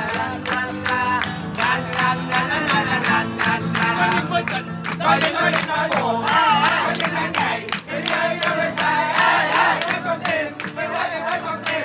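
A lô tô song sung over an instrumental backing, with a group of people clapping along to the beat.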